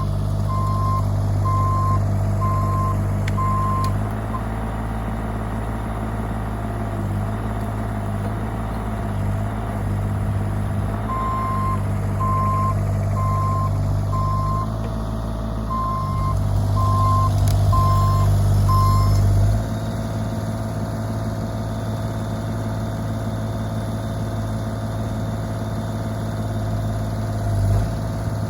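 Bobcat E35 mini excavator's diesel engine running under working load, rising and falling as the machine moves, then easing off suddenly about two-thirds of the way through. Its travel alarm beeps steadily, a little over once a second, during the first few seconds and again through the middle.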